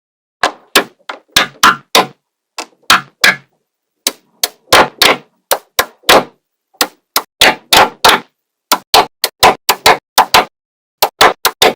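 Small magnetic balls snapping together one after another, a sharp click each time, about two or three a second at an irregular pace with silent gaps between.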